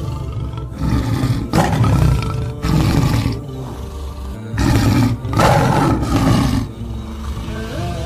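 Lions roaring in a run of loud, short, rough calls, about five in two groups with a lull about four seconds in. Background music plays underneath.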